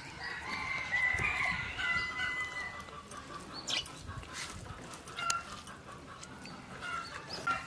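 A rooster crowing once, a long call held at one pitch for about two seconds, followed by scattered short clucks and chirps.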